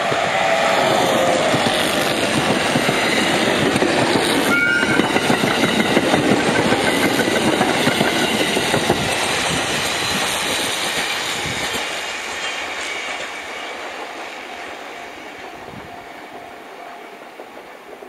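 Electric commuter train passing at speed, wheels clattering over the rail joints, with a short high squeal about four and a half seconds in. The rumble fades steadily over the last several seconds as the train draws away.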